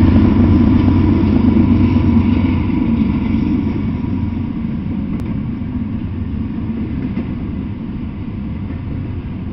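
Double-stack intermodal freight train passing close by: the steady, deep running noise of its cars' wheels on the rails, easing a little over the seconds.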